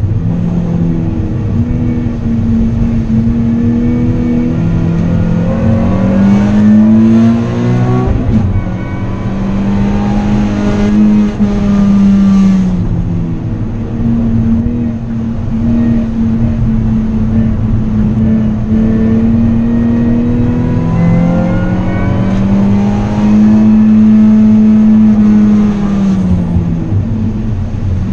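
Nissan 370Z's 3.7-litre V6 engine, heard from inside the cabin at racing speed. Its pitch repeatedly climbs under acceleration and drops back with gear changes and braking, with a sudden break about eight seconds in.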